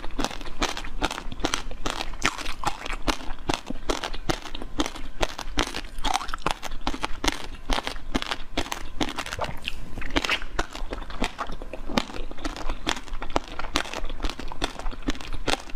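Biting into and chewing red jelly balls: a dense run of sharp crunching clicks, several a second, with wet chewing.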